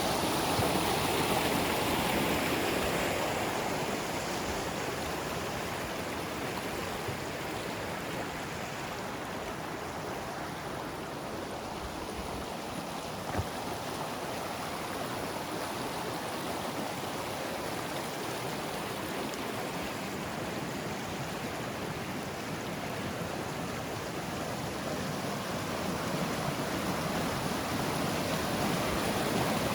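Rushing water of a mountain stream, a steady dense hiss that is louder at the start, eases off a little through the middle and swells again near the end.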